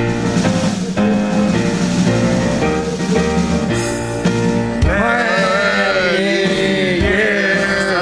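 A band plays a short instrumental lead-in. About five seconds in, the men's voices come in, singing a song together over it.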